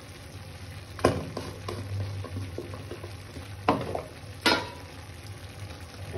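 Onions and tomatoes frying with powdered spices in a kadai, a steady sizzle, with a metal spatula clicking against the pan a few times: sharply about a second in and twice more near the four-second mark.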